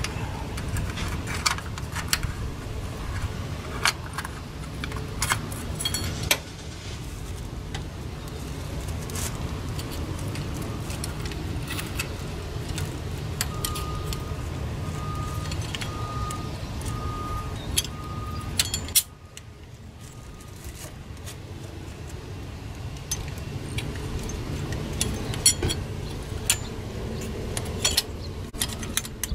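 Hand tools and small metal parts clinking and rattling as they are handled and fitted at the front of the engine during a timing-belt job, with many sharp clicks over a steady low rumble. About halfway through comes a run of short, evenly spaced beeps, and the low rumble drops away suddenly about two-thirds of the way in.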